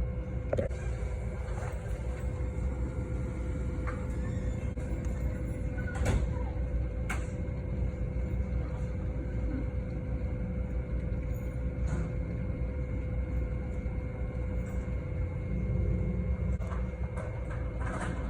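Steady low rumble of a thunderstorm, with a few faint sharp taps along the way.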